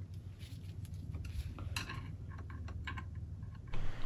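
Light, scattered metal clicks and clinks of a screwdriver and wrench against the steel selector rods and grub screws of a Volvo M40 gearbox, over a steady low hum.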